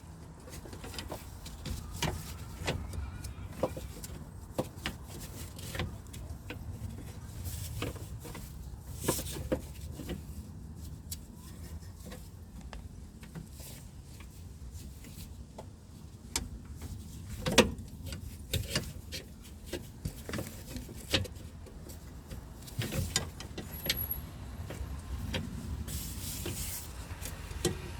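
Scattered clinks and knocks of metal parts and tools as a steering rack assembly is manoeuvred into position, the loudest knock about two thirds of the way through, over a steady low rumble.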